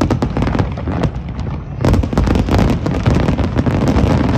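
Aerial fireworks shells bursting in rapid succession: a dense stream of overlapping bangs that grows louder and thicker about two seconds in.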